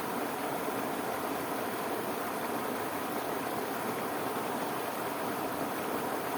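Steady, unbroken rush of fast-flowing irrigation water pouring over a small waterfall.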